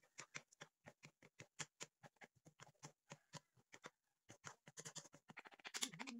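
Cooking spatulas clacking and scraping against a nonstick wok as noodles are tossed and mixed: a quick, irregular run of clicks that thickens into a dense flurry near the end.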